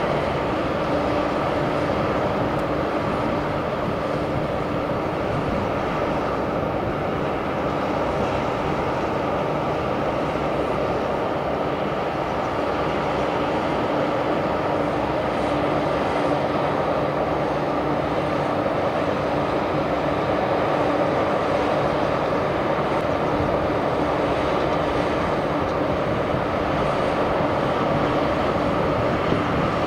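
Heavy open-pit lignite-mine machinery and its conveyor belts running: a steady mechanical rumble with a few held humming tones on top.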